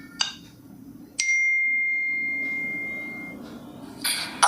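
Ringtone previews playing from the phone: a short note, then about a second in a single high bell-like ding that rings out and slowly fades over about two seconds. Near the end a louder sound with many tones starts.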